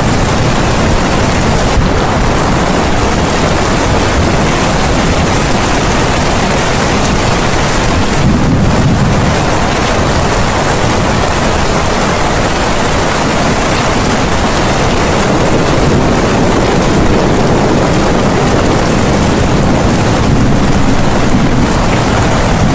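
Loud, steady rushing noise, like a continuous rain or surf sound bed, with no speech or music heard above it.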